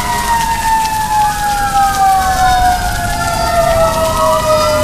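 Fire truck sirens wailing over heavy rain. Several siren tones glide and cross each other, and the loudest one falls slowly in pitch.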